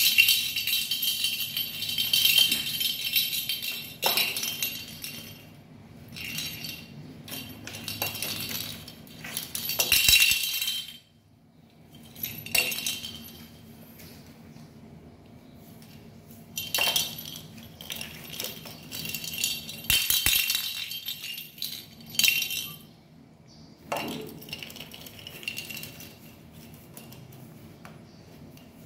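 A kitten's small toy ball with a bell inside, jingling and rattling in irregular bursts as the kitten bats, clutches and bites it. There is a short lull about eleven seconds in.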